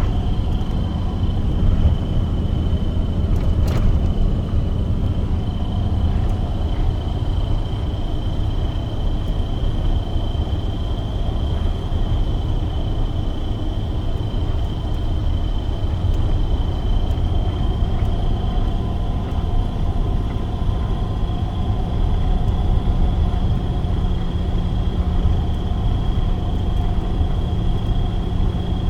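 Box truck driving down the road: a steady low engine and road rumble, with a thin, steady high-pitched tone over it and a single sharp click about four seconds in.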